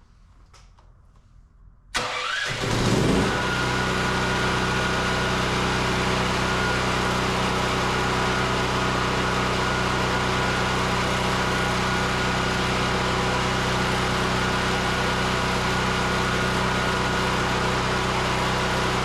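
Home generator engine starting about two seconds in: it picks up speed over about a second as it catches, then settles into a steady run.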